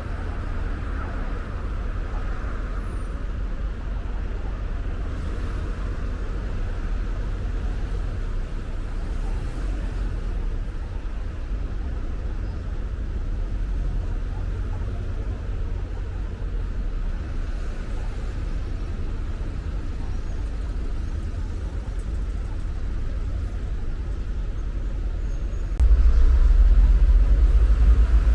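Car driving along a road: a steady low rumble of road and engine noise, which turns suddenly louder for the last two seconds or so.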